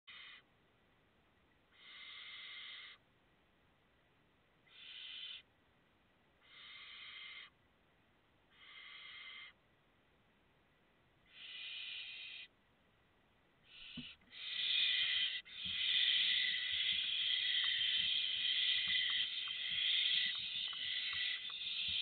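Barn owl chicks giving hissing, snore-like begging calls, one drawn-out call about every two seconds. About fourteen seconds in there is a knock, and the calls become a louder, nearly continuous hissing with scrabbling as an adult barn owl arrives in the nestbox with food.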